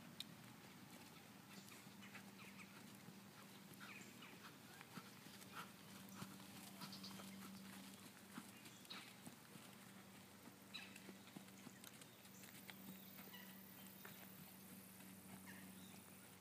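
Faint hoofbeats of a pony trotting on sand footing, with scattered soft ticks over a faint low steady hum.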